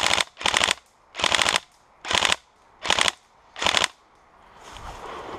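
Airsoft rifle firing six short full-auto bursts in quick succession, each a rapid rattle of shots, the last ending just before four seconds in. Near the end a low rustling starts to build.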